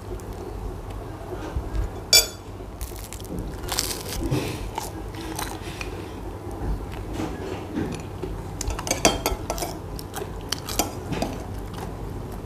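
A metal spoon clinking and scraping against a glass bowl and plate, with one sharp ringing clink about two seconds in, mixed with bites and chewing of crusty bread rolls.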